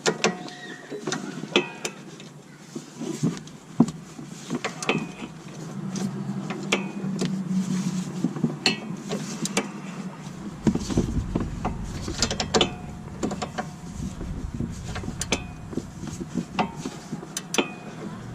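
Irregular metallic clicks and clinks of hand wrenches working the lock nut on a car's front sway bar end link, with the stud held by its flats. A low rumble joins about halfway through.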